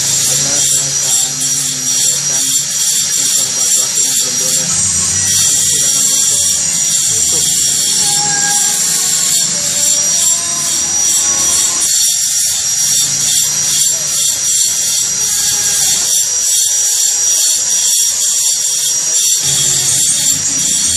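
A power tool runs steadily: a high, steady whine over a constant hiss.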